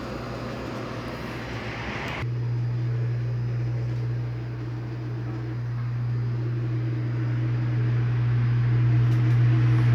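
Freezer's refrigeration unit running: for about two seconds a whoosh of fan air, then abruptly a strong steady electric motor hum from the compressor and fan motor, a sign the repaired unit is working normally.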